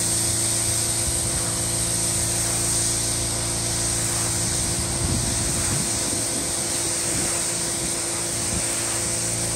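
Pressure washer spraying water onto rubber car floor mats, a steady hiss of the jet over the hum of the washer's motor and pump.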